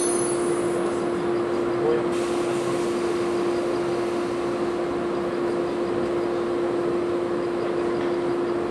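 415-series electric train standing at the platform just after stopping, doors open, with a steady hum from the train.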